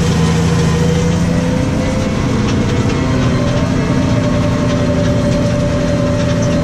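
New Holland T6.155 tractor engine running steadily while pulling a plough, its pitch rising slightly about three seconds in.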